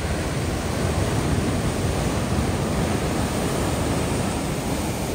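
Ocean surf: waves breaking and washing in as a steady rushing noise that swells slightly in the first second.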